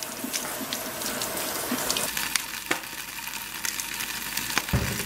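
Tap water running over kale leaves being rinsed in a sink. About two seconds in, this gives way to fresh kale sizzling and crackling in a hot frying pan, with a dull knock near the end.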